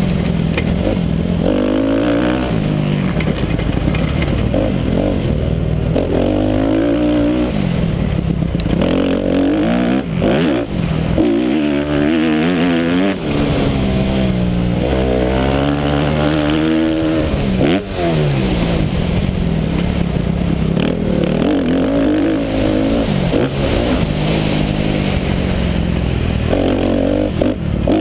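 250cc motocross bike engine revving hard and backing off again and again as it is ridden around the track, its pitch climbing and dropping through the gears, heard on board with a rush of wind and dirt noise.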